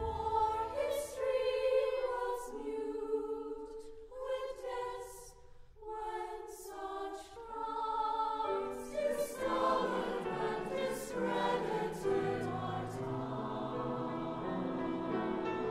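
Mixed choir singing quietly in sustained chords, with the hiss of sung consonants. Lower voices come in about eight or nine seconds in and the sound grows fuller.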